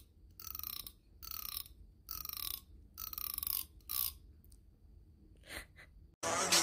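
A thumbnail strummed along the teeth of a comb, five zipping strokes just under a second apart. Each stroke is a rapid run of clicks that falls slightly in pitch.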